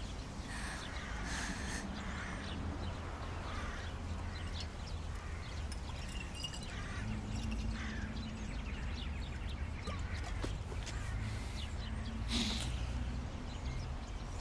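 Outdoor park ambience: a steady low rumble with scattered faint bird calls.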